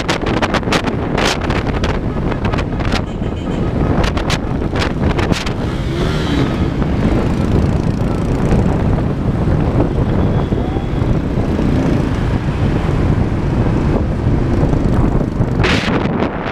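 Wind rushing and buffeting over the camera's microphone on a moving vehicle, over a steady low rumble of road and engine noise. Sharp crackling gusts come through in the first few seconds and again near the end.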